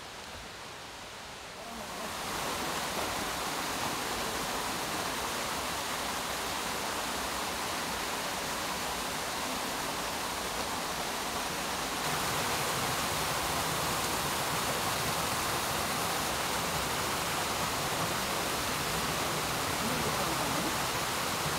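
Steady rushing of a small waterfall pouring into a rocky pool. It comes in about two seconds in, after faint forest quiet, and steps up louder about halfway through.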